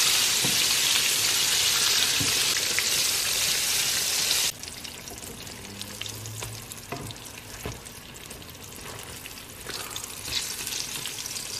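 Battered parasol mushrooms frying in hot oil in a pan, a steady loud sizzle that drops suddenly to a quieter sizzle about four and a half seconds in. A few light knocks of a wooden spatula against the pan come as the pieces are turned.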